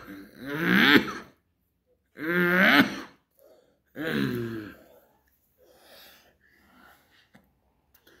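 A man clearing his throat and coughing in three loud voiced bouts about two seconds apart, followed by quieter breathing.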